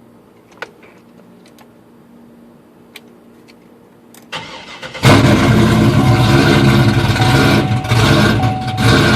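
A few faint clicks, then the starter cranking the Chevrolet Trailblazer SS's 6.0-litre LS2 V8 a little over four seconds in. The engine catches about a second later and runs loud at idle, its level rising and falling unevenly, from a tune made to give it a rough, lumpy idle.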